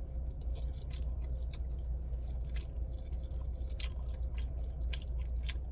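A person chewing a mouthful of sub sandwich, with irregular wet mouth clicks, over a steady low hum.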